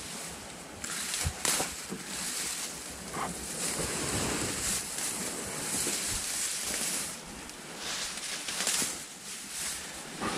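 Small boat being rowed through a weed-choked bog channel: irregular swishing, splashing strokes in the water, with the hull brushing through the growth.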